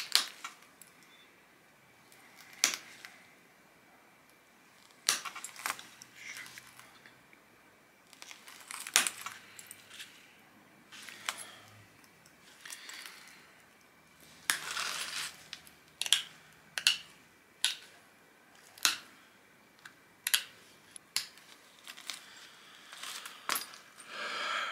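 Stone disc being pressure-flaked with an antler tool: many sharp clicks and snaps at irregular intervals as flakes pop off its edge, with a short scraping rub about halfway through.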